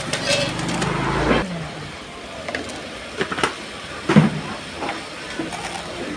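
A small engine running, stopping abruptly about a second and a half in, followed by scattered clicks and knocks and brief voice sounds.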